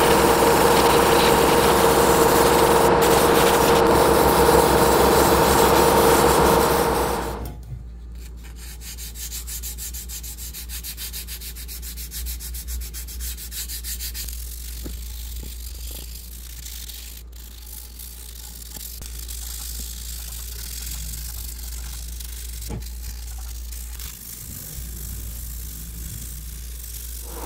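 A small power tool runs with a steady whine, then cuts off suddenly about seven seconds in. After that there is only a low hum with faint scraping and a few light ticks.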